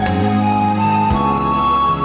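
Slow, gentle instrumental background music: a held melody line that steps up in pitch about a second in, over sustained low notes.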